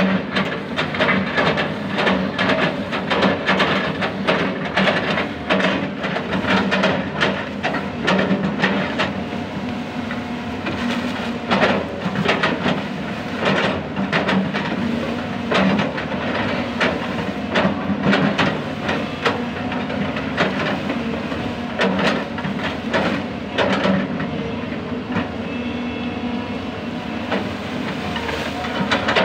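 Hydraulic excavator's diesel engine running steadily under load. Over it come frequent irregular knocks and cracks as the bucket chops felled oil palm trunks into chips. The knocks thin out near the end.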